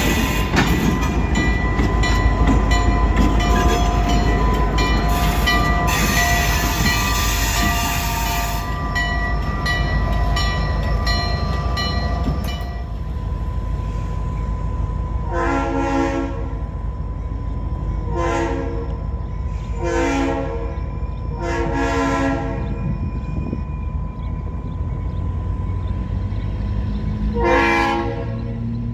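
A train rolling past, clattering over the rails with a steady squeal, for about the first twelve seconds. Then a diesel locomotive's air horn sounds five short chord blasts, the last near the end, over a steady low engine rumble.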